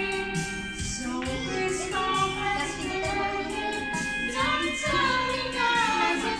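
Karaoke song playing, with a voice singing the melody over the backing track.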